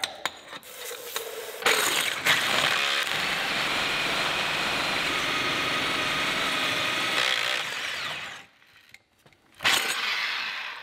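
DeWalt SDS hammer drill turning a diamond core bit that grinds steadily through steel rebar buried in the concrete wall. It gets louder after a second or two, stops about eight seconds in, then runs again for about a second.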